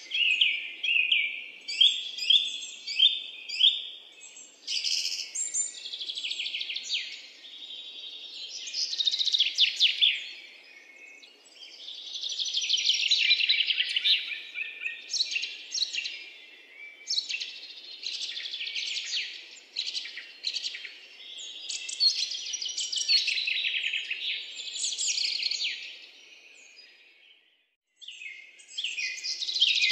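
Songbirds chirping and trilling in rapid runs of high notes, almost without a break. The song fades away about two seconds before the end, then starts again.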